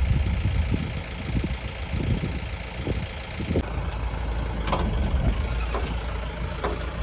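Safari jeep's engine running with a steady low rumble, overlaid by short knocks and rattles from the vehicle.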